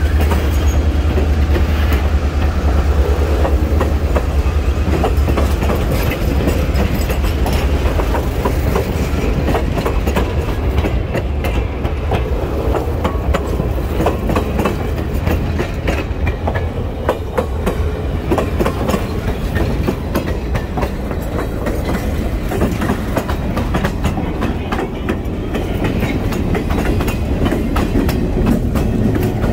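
Old steel passenger coaches and a caboose rolling slowly past close by, their wheels clicking and knocking steadily over the rail joints.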